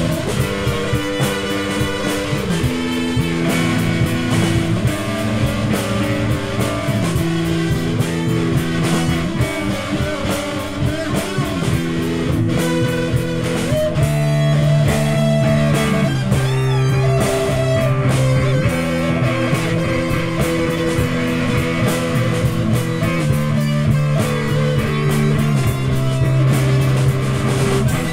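Instrumental psychedelic rock jam on electric guitars, keyboard and drums. Sustained chords shift every second or two under a busy, noisy guitar texture.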